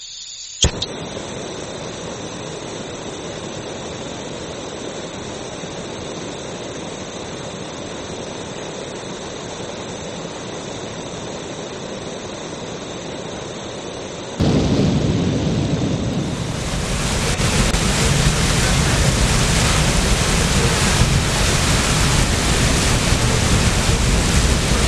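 A click, then a steady hiss from the torch flame burning on a small propane cylinder. About fourteen seconds in it cuts abruptly to the louder, deeper rushing of a large fire burning in a live-fire aerial cooler training prop, which swells a little and holds steady.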